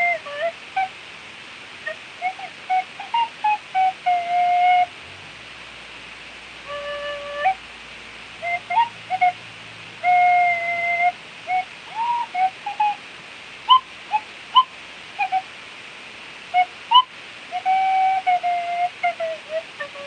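Clarke Sweettone tin whistle played solo in a live improvisation: phrases of held notes and quick short notes, several sliding up in pitch, with a short pause about five seconds in. A steady hiss lies underneath.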